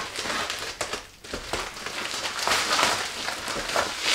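Plastic shipping wrap crinkling and tearing as it is pulled off a cardboard box by hand, in irregular rustling bursts that grow louder near the end.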